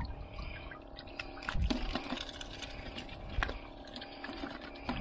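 Water splashing and sloshing in a plastic bucket as hands work a freshly caught grouper in it to bleed it out, with irregular splashes, the biggest about one and a half and three and a half seconds in.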